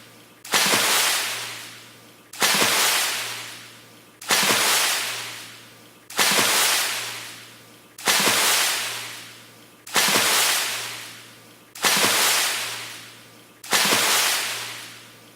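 A fast water splash, the same one repeated about every two seconds: each starts suddenly and dies away over a second or so.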